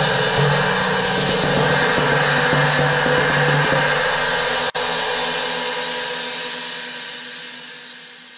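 Crazy Flat China cymbal, 23-inch, played with mallets: a dense, steady cymbal wash with low mallet strokes underneath. There is a brief sharp dropout about halfway through, then the wash dies away and fades out.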